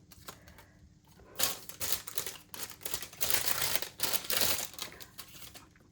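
Packaging crinkling and rustling in a run of uneven bursts as mail items are handled and unwrapped.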